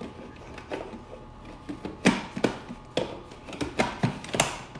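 A Cuisinart food processor being handled, with a string of short, sharp plastic knocks and clicks from its bowl, lid and feed-tube pusher. There are about seven uneven taps, most of them in the second half.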